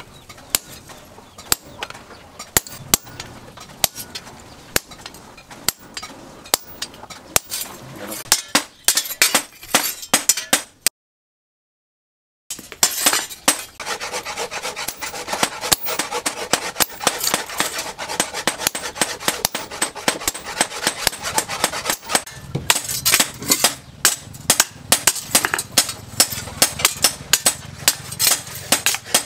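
Hand hammer striking a steel knife blade forged from a rusted chainsaw bar on a small anvil: a long run of sharp metallic clinks, irregular at first and then several a second. The sound drops out completely for about a second and a half near the middle.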